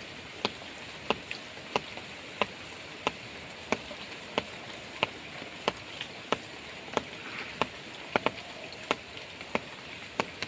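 Steady hiss of water, with a sharp tick about every two-thirds of a second at a very even pace.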